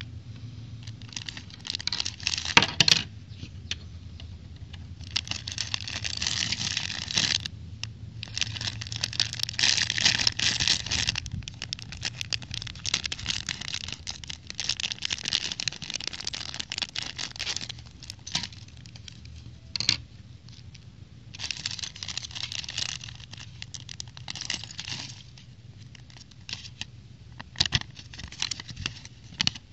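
Clear plastic bags of toy bricks crinkling and rustling in repeated bursts as they are handled and cut open with scissors, with a few sharp clicks.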